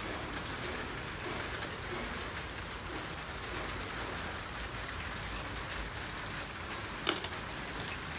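Plastic-wrapped parcel being cut open with a box cutter and its wrapping pulled apart by hand, over a steady even hiss; one sharp click about seven seconds in.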